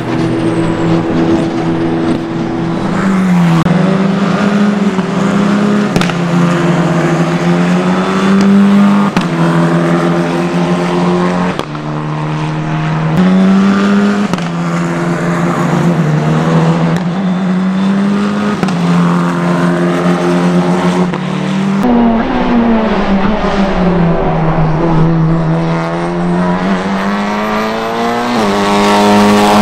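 Race car engines at high revs, the engine note climbing steadily and dropping back with each gear change, over and over. A Tatuus Formula 4 single-seater is heard in the middle of the stretch, and a Honda Civic Type R TCR touring car in the last few seconds.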